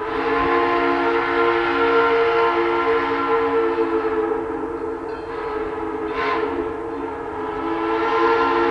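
Distant steam locomotive chime whistle: Great Smoky Mountains Railroad's Baldwin 2-8-0 No. 1702. It sounds a long, steady chord that starts suddenly, eases off about halfway, and swells again near the end.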